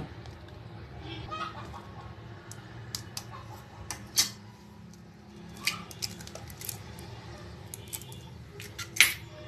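A hen's egg tapped against a plastic bowl and its shell cracked and pulled apart by hand: a scatter of sharp taps and cracks, the loudest near the end, over a low steady hum.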